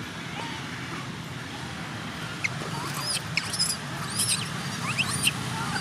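Young macaque giving a quick run of short, high-pitched squeaks during rough play with another juvenile, about halfway in, over a steady low background rumble.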